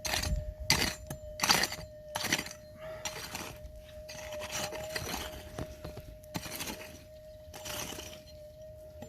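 A digging tool striking and scraping stony gold-field ground: four sharp strikes with stones clinking in the first two and a half seconds, then softer scraping. Under it runs a steady mid-pitched tone, the Minelab GPZ 7000 metal detector's threshold hum.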